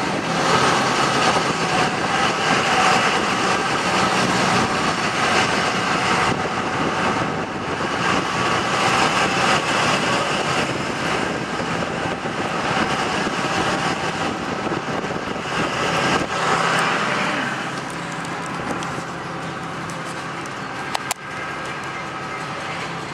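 Driving noise of a pickup truck, heard from its cab: steady engine, tyre and wind noise while the truck rolls along. The noise eases a little near the end, where one short sharp click is heard.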